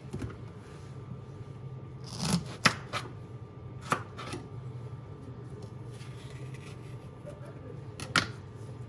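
Knife slicing through a ripe plantain against a cutting board: a few separate sharp cuts, bunched about two to three seconds in, another near four seconds and one more near the end.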